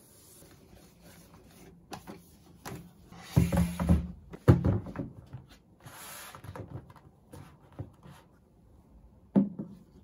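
Objects being picked up and set down on a desk while tidying it: a cluster of knocks and thumps about three to five seconds in, a stretch of rubbing, then a single sharp knock near the end.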